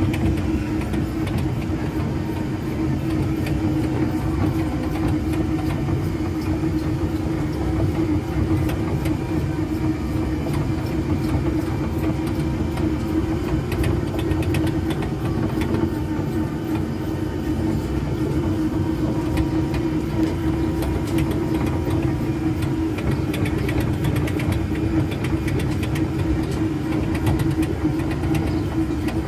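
Tractor-style ride vehicle's motor running steadily as it rolls along its guide track: a constant hum over a low rumble.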